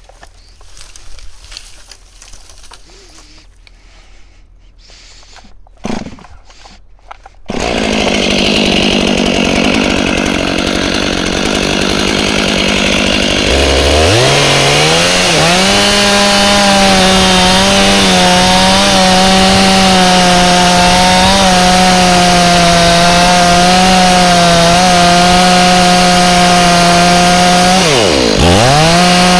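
Two-stroke chainsaw starting up abruptly after a few quiet knocks. It runs, then revs up to a high steady whine, as when cutting into the tree. Near the end it dips briefly and revs back up.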